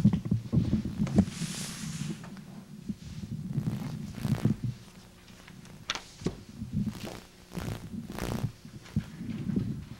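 Irregular knocks, thumps and low rumbling bumps as a table and equipment are moved and set down near a microphone, with a brief hiss of something sliding about a second in.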